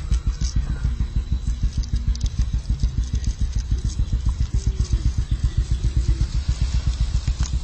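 A small engine running steadily, its exhaust beat a rapid, even low pulse.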